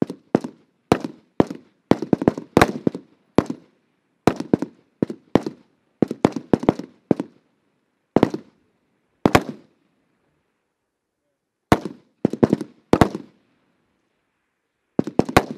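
Rifle fire on a range from M4-style rifles: about two dozen single shots at irregular intervals, some in quick clusters and some a second or two apart, each sharp crack trailing into a short echo.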